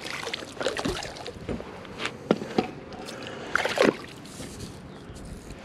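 Water splashing and sloshing with scattered irregular clicks and knocks as a small bass is reeled to the boat and landed.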